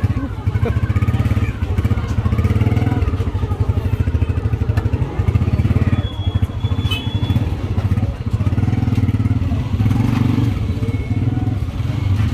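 A small motor vehicle engine running close by, a steady, rapidly pulsing drone with some clatter over it. A brief high tone sounds about six seconds in.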